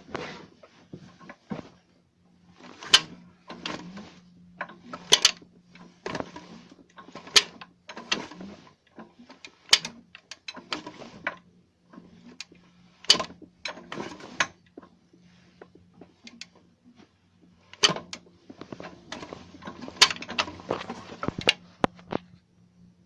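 BMW E34's M50 straight-six engine running with sharp, irregular knocks and short rattles a second or two apart from the timing-chain area, over a faint steady hum; the owner never found the cause.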